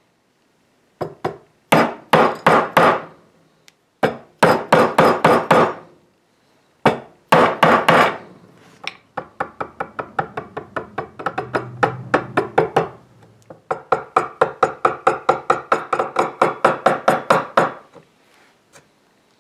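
A wood chisel being struck with rapid light taps, chopping a square recess into oak for a patch. The sharp knocks come in short runs at first, then settle into a steadier run of about five taps a second that stops near the end.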